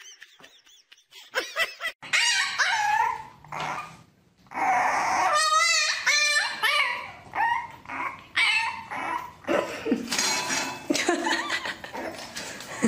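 French bulldog puppy whining and yipping over and over in high cries that waver up and down. The cries start about two seconds in.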